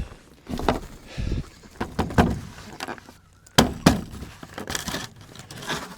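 Chicken waterer being handled and set down in the coop: scattered knocks and thumps, with two sharp knocks about three and a half seconds in.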